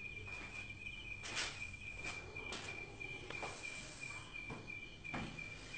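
Crickets chirping steadily at a low level, with a few faint soft knocks now and then.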